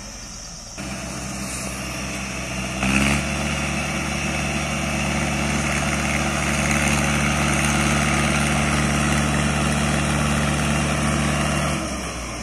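Mahindra Arjun 555 DI tractor's diesel engine starting about a second in after stalling, surging briefly near three seconds, then running steadily under load as it hauls a loaded trolley uphill in low second gear. It drops off near the end.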